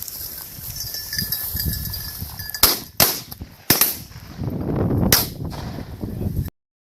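Four shotgun shots fired at a flushed game bird, the first two close together and the others spread over about two and a half seconds, over wind and rustling. The sound cuts off abruptly near the end.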